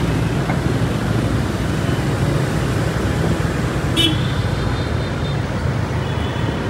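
Steady rumble of city traffic, scooter and car engines and road noise, heard from a motorbike riding among them, with a short high-pitched beep about four seconds in.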